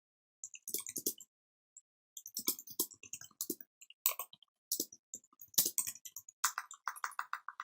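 Typing on the scissor-switch keys of an Anker A7726 ultra-compact Bluetooth keyboard: bursts of light key clicks with short pauses, and a quick even run of keystrokes near the end.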